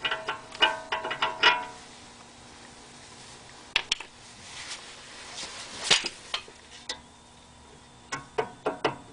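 Worn front wheel hub bearing assembly of a BMW E46 330i clacking as the loose hub is rocked by hand: sharp metallic knocks with a short ring. There is a quick run of knocks at first, a few scattered ones in the middle and another run near the end. The bearings are completely worn out.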